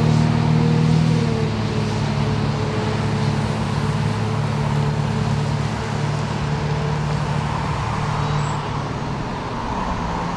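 1970 Pierce Dash fire engine's engine running steadily as the truck drives off down the road, the low drone slowly fading.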